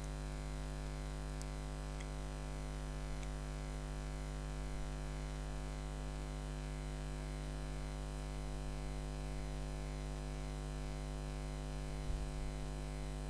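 Steady electrical mains hum with hiss in the recording, with a soft bump near the end.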